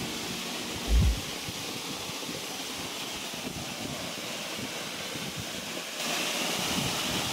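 Waterfall pouring onto rocks: a steady rushing hiss of falling water, with one brief low thump about a second in. The rush turns louder and brighter about six seconds in.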